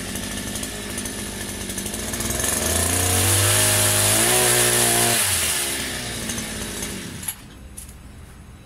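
Multi-tool pole chainsaw's small engine idling, revving up for about three seconds, dropping back to idle, then cut off suddenly about seven seconds in.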